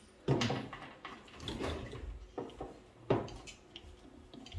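Handling noises as SATA cable connectors are pushed into a bare 3.5-inch hard drive and the drive is shifted on a wooden desk: irregular knocks and plastic clicks, with a sharp click just after three seconds.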